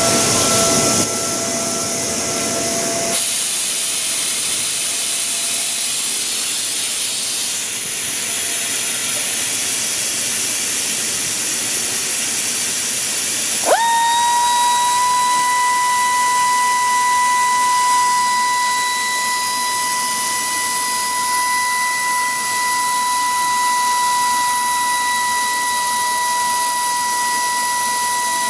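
Compressed air hissing steadily through the air-powered vacuum suction base of a Gison GPD-231 drilling machine. About halfway through, the air motor starts: a quick rising whine settles into a steady high whine over the hiss.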